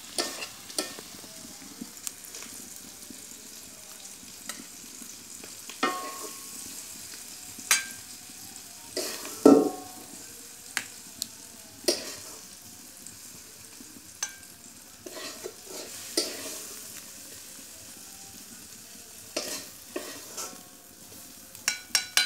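Metal spatula scraping and knocking against a metal karahi as cooked egg and tomato chutney is scooped out into a steel bowl, over a faint steady sizzle from the hot pan. The scrapes and clanks come irregularly, the loudest about nine and a half seconds in.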